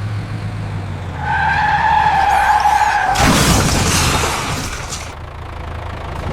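A vehicle motor running with a steady low hum. About a second in comes a high squeal of two seconds, then a loud rushing hiss of about two seconds.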